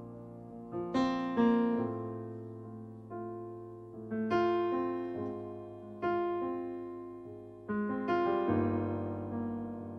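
Piano sound from a stage keyboard playing a slow ballad introduction. Chords are struck every second or two and each is left to ring and fade.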